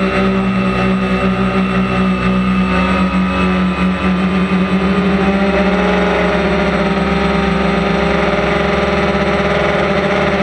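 DJI Phantom quadcopter's electric motors and propellers in flight, heard from the camera mounted on the drone: a steady, loud buzzing whine of several pitches that shift slightly about six seconds in.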